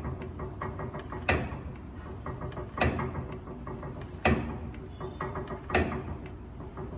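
Move E2 elliptical trainer in use, knocking loudly once per stride about every second and a half, with lighter clicks in between over a low running rumble. This is excessive noise from a machine less than a week old.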